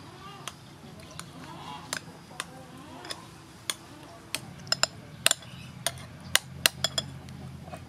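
Metal spoon clinking against a ceramic bowl while stirring and mashing soaked tamarind in water: scattered sharp clinks, few at first and coming thicker in the second half.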